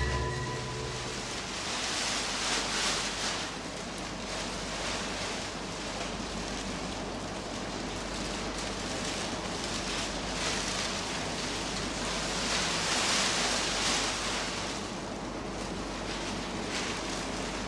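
Ocean surf sound, a rushing wash of waves that swells and ebbs several times.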